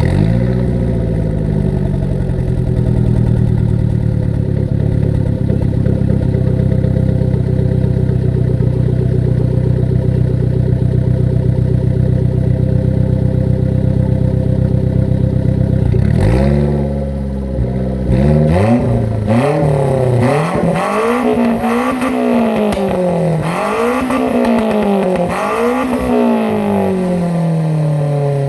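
Car engine breathing through a Fujitsubo aftermarket dual-exit exhaust with sub-silencer and flange silencer, its idle settling down from a higher speed just after start-up and then running steadily. About 16 seconds in it is blipped once, and in the last ten seconds it is revved up and down about five times.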